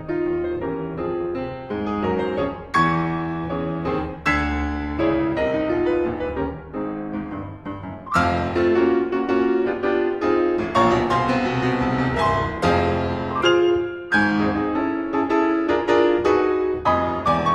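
Solo piano playing a dissonant ragtime piece in dense, hard-struck chords, growing louder about eight seconds in.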